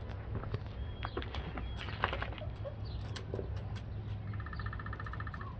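Small birds chirping, with a short, rapid, even trill about four seconds in, over a low steady rumble and light scattered clicks.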